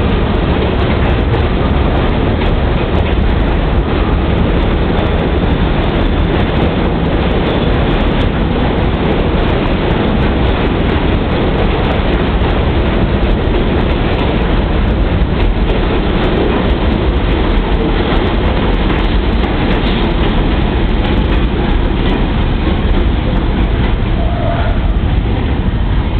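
Subway garbage train of R62A cars and refuse cars passing close by: a loud, steady rumble of steel wheels on rail, with a running clickety-clack of wheels over rail joints.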